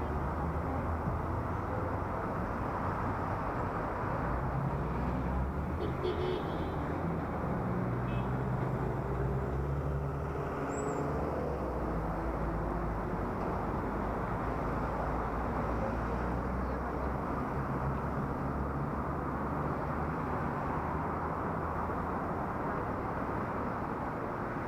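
Wind rushing over a helmet-mounted action camera's microphone while riding, with a steady low vehicle drone underneath.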